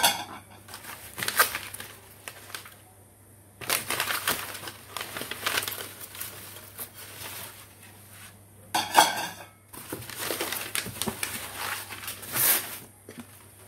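Packing sheets rustling and crinkling as ceramic bowls are unwrapped by hand, with two sharp clinks of bowls being set down, one at the start and one about nine seconds in.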